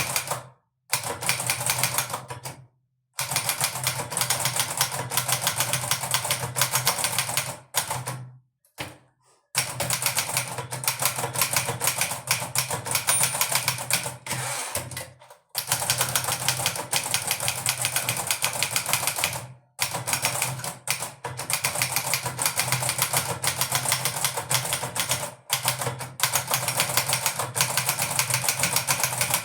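Manual portable typewriter, a 1958 Hermes Baby, being typed on at speed: rapid runs of key strikes clattering in bursts, broken by several brief pauses.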